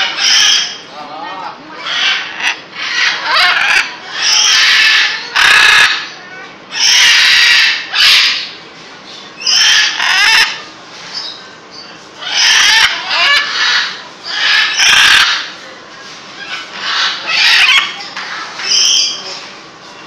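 Parrots calling: a dozen or so loud calls, each half a second to a second long, one to two seconds apart.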